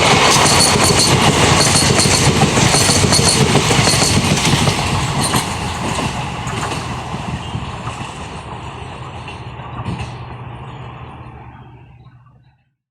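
Express passenger train's coaches rattling past on the track, wheels clicking over the rail joints, loud at first. The noise then fades steadily as the train draws away, and cuts off just before the end.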